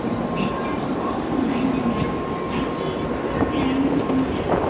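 N700-series Shinkansen train at the platform, giving off a steady mechanical running noise with a faint steady tone.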